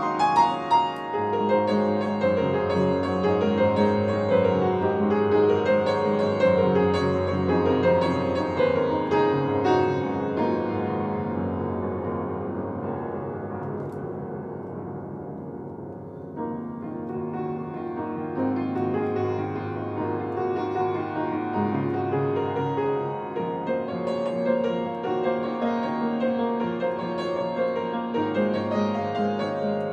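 Upright piano playing a solo sonata passage. Busy, many-note playing fades gradually to a soft low point about sixteen seconds in, then comes back in fuller and louder.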